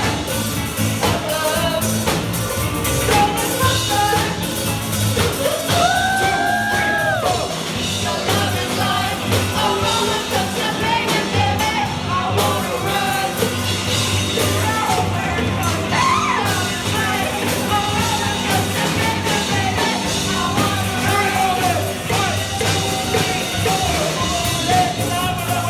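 Live rock band playing, with a lead vocal singing over it.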